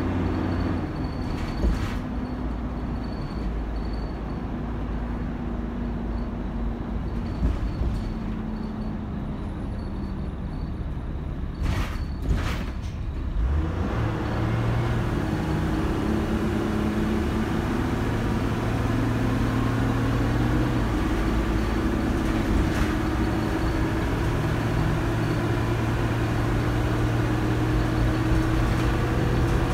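Dennis Dart SLF bus heard from inside the saloon, its engine and Allison AT545 automatic gearbox running at an even pace, with a couple of short hisses about twelve seconds in. From about fourteen seconds the engine gets louder and its note climbs repeatedly as the bus pulls hard through the gears.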